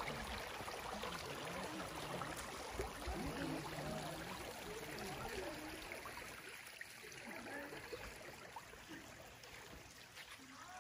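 Faint outdoor ambience of a wadi: a steady rush of flowing water, with distant voices rising and falling now and then. The rush grows quieter about halfway through.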